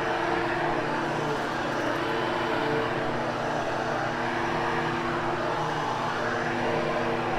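Hoover Hushtone commercial upright vacuum running steadily, its motor humming under a hiss of rushing air as it grooms and post-vacuums freshly cleaned carpet.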